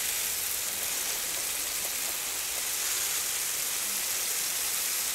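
Garden hose spray wand on a shower setting watering a freshly repotted ficus bonsai: a steady hiss of spray falling on the coarse, gravelly draining substrate in its pot.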